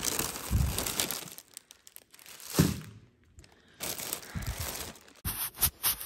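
Plastic grocery bags rustling and crinkling in bursts as groceries are handled and unpacked, with a thump about two and a half seconds in and a few sharp clicks near the end.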